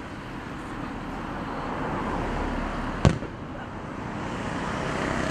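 A single firework shell bursting with one sharp bang about three seconds in, over steady outdoor background noise.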